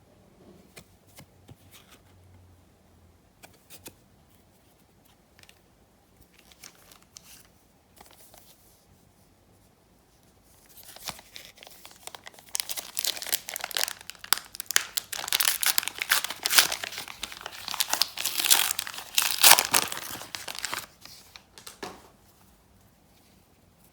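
A trading-card pack wrapper being handled and torn open: a few soft clicks and rustles at first, then, about halfway through, about ten seconds of loud crinkling and tearing of the wrapper before it goes quiet.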